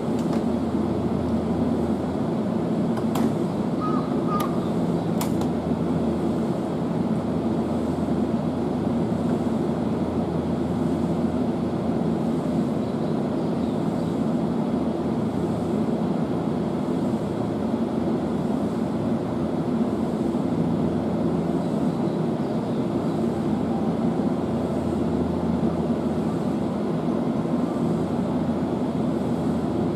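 Keihan electric trains running toward the station: a steady rumble of wheels and motors on the rails, with a few light clicks about three to five seconds in.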